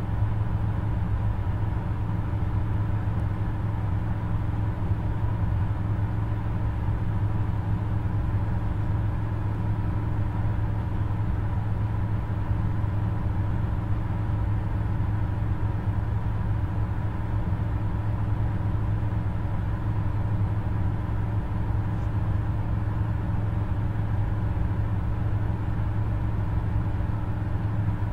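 Steady low hum of background noise with faint steady tones above it, unchanging throughout.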